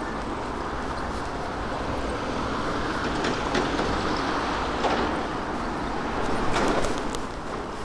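Strong gusty wind buffeting the microphone during a bicycle ride, a low rumbling noise that swells near the end, with a few sharp clicks.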